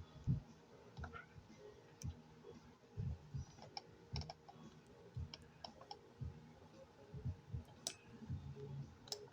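Light, irregular clicks and soft taps, a dozen or so scattered across the stretch, made while handling the device she is editing the photo on.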